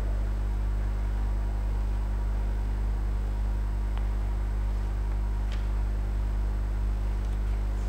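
Steady electrical mains hum picked up by the recording chain, with its stack of overtones, and a couple of faint clicks about halfway through.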